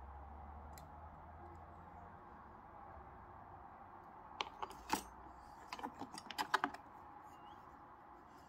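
Light clicks and taps of small painted model jets being handled, knocking against each other and the cutting mat. They come in two short clusters in the middle, the loudest about five seconds in, over a low steady hum.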